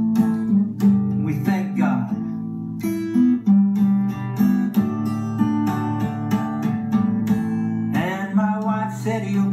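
Acoustic guitar strummed in a steady rhythm, an instrumental passage with no words.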